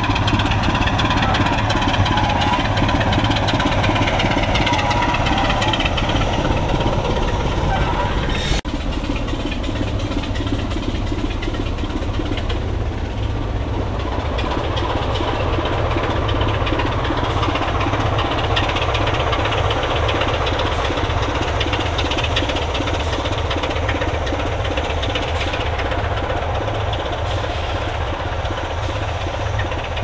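Class 25 diesel locomotive's Sulzer six-cylinder engine running, its note wavering in pitch for the first few seconds. After a brief break about a third of the way in, it carries on steadily.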